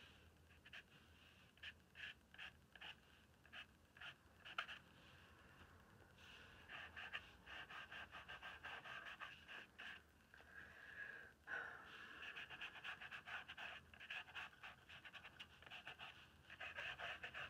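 Pencil sketching on a gesso-and-ink-coated journal page: faint, quick scratchy strokes, at first in separate short runs, then denser and more continuous from about six seconds in.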